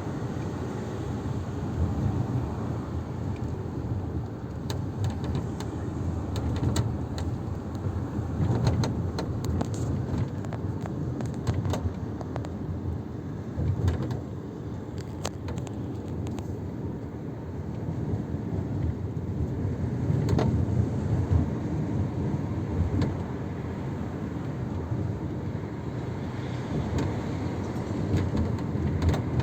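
Steady road and drivetrain rumble inside the cabin of a moving 2020 Toyota RAV4, broken by many short, irregular clicks and ticks. The clicks are the abnormal sunroof noise the owner is recording.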